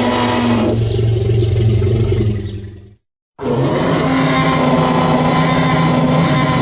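Stock dinosaur roar sound effects. One long, rough roar fades out about two and a half seconds in. After a brief moment of dead silence, another long roar begins.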